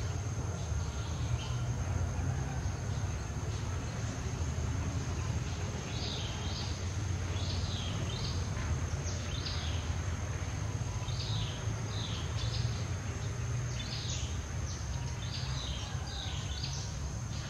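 Outdoor ambience: a steady high-pitched insect drone over a low rumble. Short falling chirps come in loose runs, most of them from about five seconds in.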